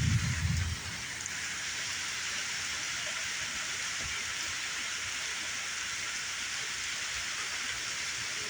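Steady rain falling, an even hiss of drops. There is a brief low rumble in the first second.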